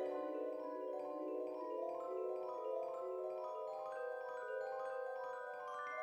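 Background music: a gentle melody on mallet percussion such as vibraphone or marimba, with notes moving higher from about two-thirds of the way in.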